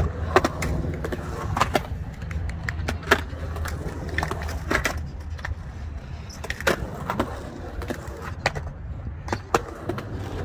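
Skateboard wheels rolling over smooth concrete in a skatepark bowl: a steady low rumble that grows weaker after the first few seconds, with scattered sharp clacks throughout.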